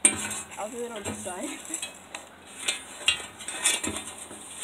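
Knocks, clatter and scraping of sneakers on the wooden rail that the phone is resting on, as someone climbs up onto the rail; the impacts carry straight through the wood to the phone, with a sharp knock right at the start.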